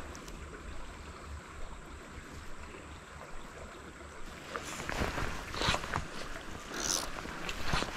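Small shallow stream running with a steady hiss. About halfway through come four short, louder noisy swishes.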